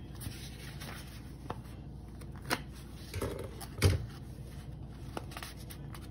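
Scissors and packaging being handled: a few scattered sharp clicks, with a brief rustle and then a louder knock about four seconds in.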